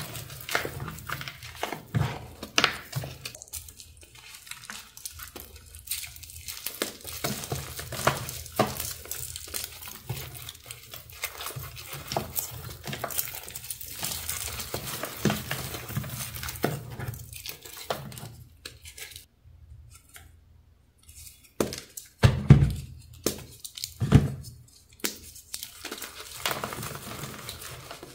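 Dyed, reformed gym chalk being crumbled and squeezed by hand in a plastic tub: a steady run of crisp crunches and powdery crumbling, with a few louder crunches toward the end.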